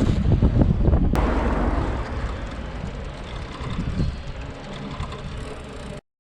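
Wind buffeting the camera microphone: a low, gusty rumble with hiss and a single sharp click about a second in. It eases after about two seconds and cuts off abruptly near the end.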